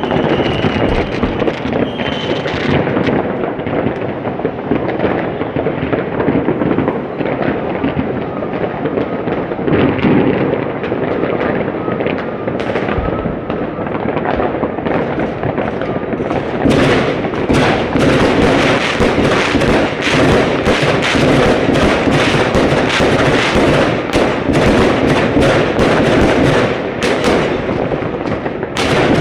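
Fireworks going off without a break: a dense, continuous crackle and rumble of bangs. About halfway through it turns into a rapid barrage of sharp cracks.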